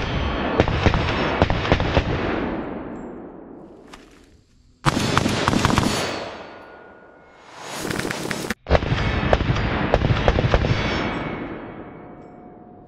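Strings of rapid rifle fire from an FN SCAR 16S short-barrelled rifle in 5.56 mm, sharp shots over a dense tail of echo. There are three strings: one at the start, one breaking in abruptly about five seconds in, and one about eight and a half seconds in. Each fades away over a couple of seconds.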